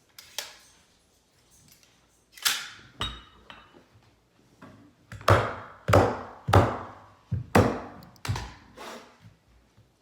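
A series of about nine sharp knocks from a hand tool striking the wooden stairs while a carpet runner is fastened down. Each knock has a short ringing tail. One comes near the start, two follow after a couple of seconds, and six come in quick succession in the second half.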